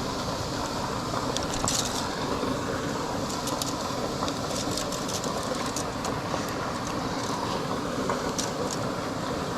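Steady rushing of water pouring through a spillway: an even, low rumbling noise, with a few light clicks over it.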